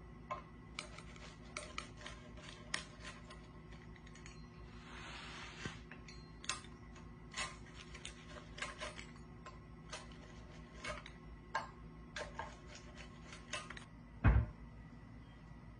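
Pizza wheel cutting through a crisp-crusted pizza on a wooden board: a string of sharp crunches and clicks, with a longer rasping cut about five seconds in. A single loud, low thump near the end.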